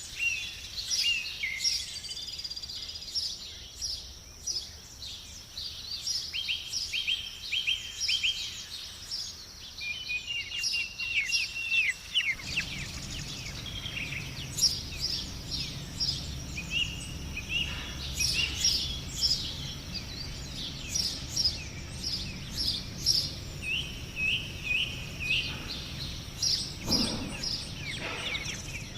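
Several songbirds singing, a dense mix of quick chirps and short trills over a steady high-pitched hum. A low rumble comes in partway through.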